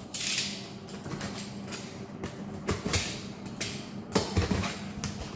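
Cardboard box being opened by hand: a scraping rustle of the flaps about a second in, then scattered knocks and thumps on the cardboard.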